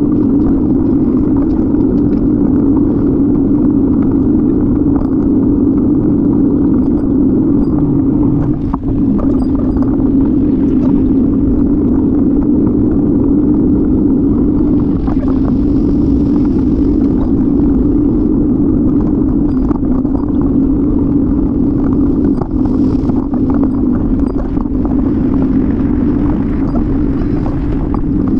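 Steady wind and road rumble on the microphone of a camera riding on a moving bicycle: a constant low drone with no break, dipping briefly twice.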